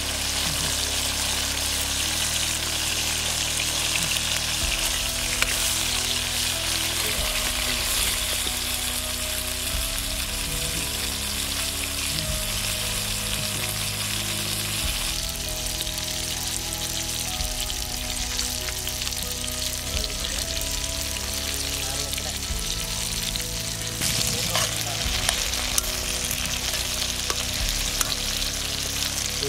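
Brinjal (eggplant) and onion pieces sizzling as they fry in an aluminium kadai, stirred with a steel ladle that knocks against the pan a few times.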